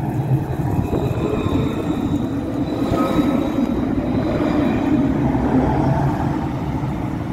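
A tram running on its rails: a steady, loud rumble with faint high whining tones over it.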